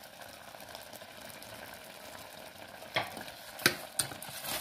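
Stainless-steel pot of cucumber and mango pieces simmering with a steady bubbling hiss. About three seconds in, a steel ladle starts stirring, knocking and scraping against the pot several times.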